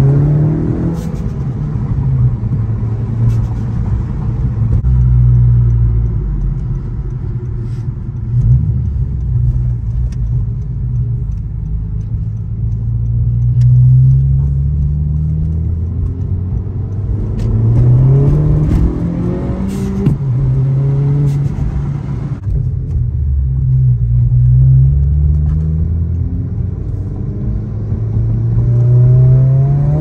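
Honda Civic Si (11th generation) with its 1.5-litre turbocharged four-cylinder, heard from inside the cabin while driving. The engine and exhaust note rises in pitch under acceleration several times and falls back between the pulls, over a low drone at cruising speed.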